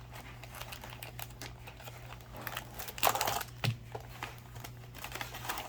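Crinkling of foil-wrapped Lorcana booster packs being handled and set on a small digital scale, with a louder crackle about three seconds in. A faint low hum runs underneath.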